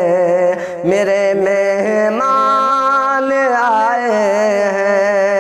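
A solo male voice singing an Urdu nazam, drawing out one long melodic phrase with slow turns in pitch. There is a short break for breath about a second in, and the line steps up in pitch a little after two seconds and is held there.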